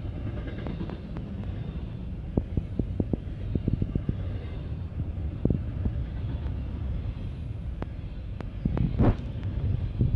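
Double-stack container cars of a Norfolk Southern intermodal freight train rolling past, a steady low rumble broken by irregular sharp clicks and clanks of wheels on the rails, loudest in a cluster near the end.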